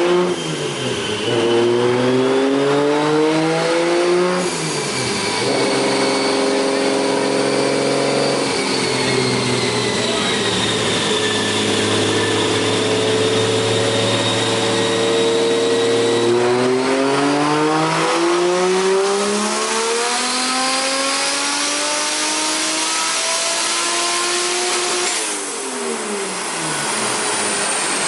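Lexus SC300's big single-turbo 1JZ inline-six running a dyno pull. Revs climb in the first few seconds and hold steady through the middle. Then comes a long wide-open-throttle pull, revs rising steadily for about nine seconds, before it lets off and the revs fall near the end.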